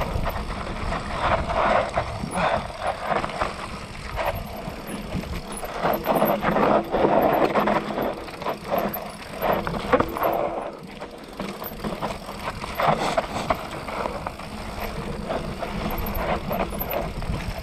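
Mountain bike ridden fast down a rough dirt trail: tyres running over dirt and rocks, with the chain and frame rattling and knocking irregularly over the bumps.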